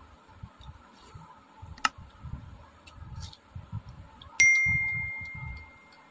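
A stainless steel plate knocked once about four seconds in, ringing with a clear high tone that fades over about a second and a half. A sharp click about two seconds in, and soft smacking and ticking of eating rice by hand throughout.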